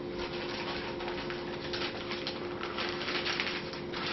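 Powdered sugar being poured into a mixing bowl: a soft, irregular rustling patter, over a steady low electrical hum.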